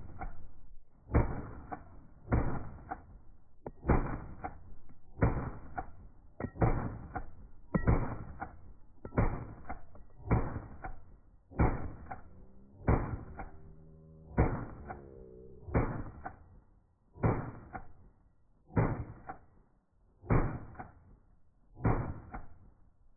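AR-15 rifle shots played back in slow motion: a long string of deep, dull shots, one about every second and a quarter, each dragged out into a long fading tail.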